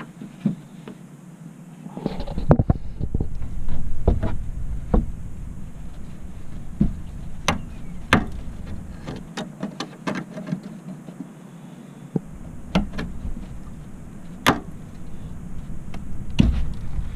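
Metal pliers working a spring hose clamp on a rubber radiator-area hose: irregular sharp metal clicks and knocks, with stretches of low rubbing and scraping as the clamp and hose are worked loose.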